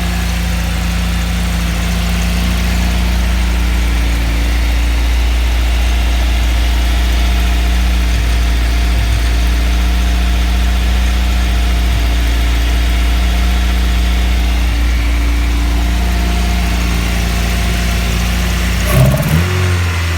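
Nissan CA18 1.8-litre inline-four engine idling steadily with its air flow meter plugged in and its exhaust leak repaired. Near the end it is revved briefly.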